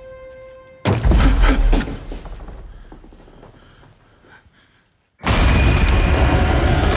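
Trailer sound design: a held, eerie tone gives way to a sudden loud boom about a second in, which dies away over several seconds. After a moment of silence, a loud dense wash of noise cuts in near the end.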